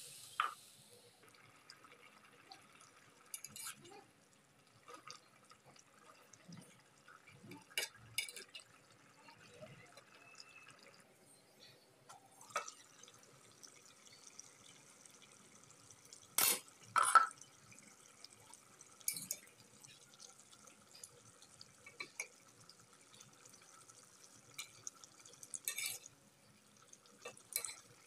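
Spatula stirring chicken gizzards and liver in a thick, wet masala gravy in a pan, with scattered knocks and scrapes against the pan, the loudest a pair about two-thirds of the way through, over a faint sizzle as the masala fries down.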